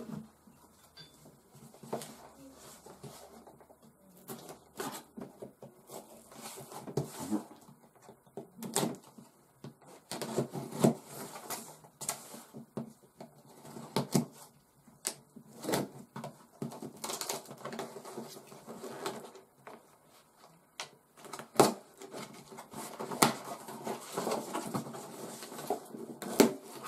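Packaging and parts being handled and rummaged through in a cardboard box: irregular rustling, tapping and clattering, with a few sharper knocks.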